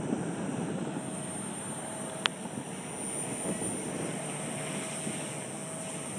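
250-size RC helicopter in flight: a steady high whine from its motor and rotor, over wind rumbling on the microphone. One sharp click about two seconds in.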